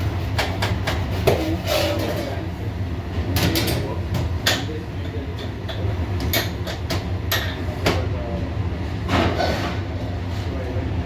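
Kitchen background: a steady low hum of kitchen equipment, with scattered clatter and knocks throughout.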